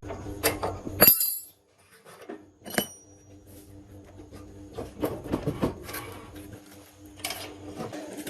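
Irregular metallic clinks and knocks of tools and metal parts being handled and set down, with a few sharper clacks in the first second and near three seconds in.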